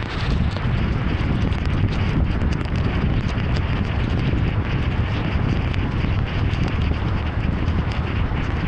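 Heavy rain on a moving car, a steady rush of rain, tyre and wind noise with many small sharp drop impacts.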